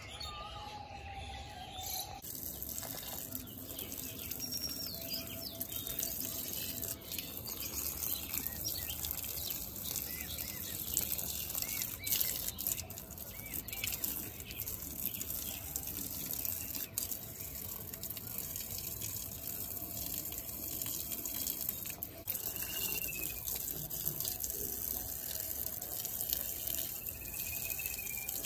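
Water running from a garden hose and splashing into potted plants and onto a concrete floor, starting about two seconds in and running steadily. A few bird chirps come through over it.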